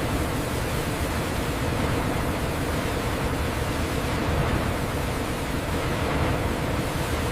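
A steady, even rushing noise with a faint hum under it, which starts and cuts off abruptly.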